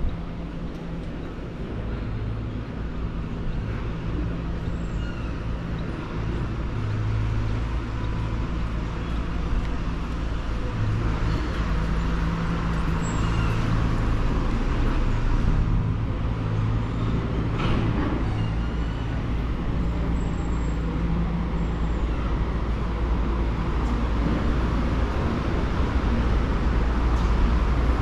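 Street traffic: motor vehicles running nearby, a continuous low engine rumble over road noise that grows slightly louder toward the end.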